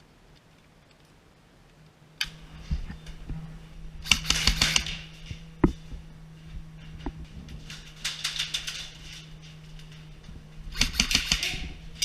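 Airsoft electric guns firing three short full-automatic bursts of rapid clicks, with a single sharp crack between the first two, over a steady low hum.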